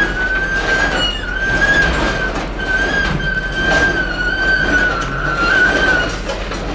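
Steel scrap container being dragged up onto a hooklift truck, its runners squealing on the rollers in a high, wavering screech that breaks off briefly every second or so. Underneath are the truck's engine hum and a few clanks from the load.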